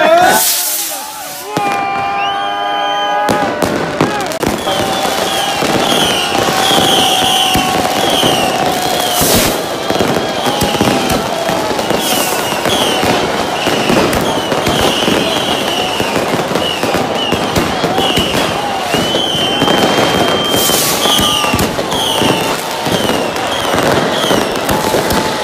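Fireworks going off at a New Year celebration: repeated bangs and pops through the whole stretch, mixed with short high-pitched chirps, while people's voices carry underneath.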